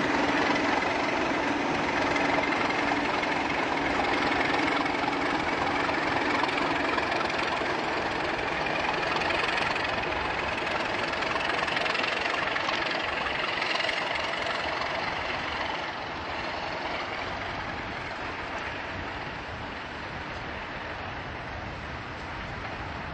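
A pair of Class 50 diesel-electric locomotives running, with the high whine that earned the class its 'Hoover' nickname climbing slowly in pitch. About two-thirds of the way through the sound begins to fade gradually.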